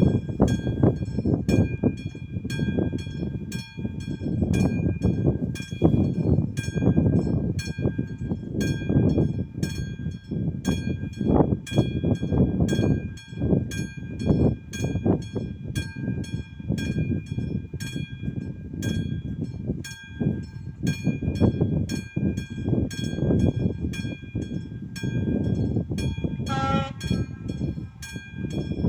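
Classic mechanical warning bell of an AŽD 71 level crossing ringing in rapid, evenly spaced strokes, over a low gusty rumble. About 26 seconds in, the approaching class 810 railcar gives a short horn blast.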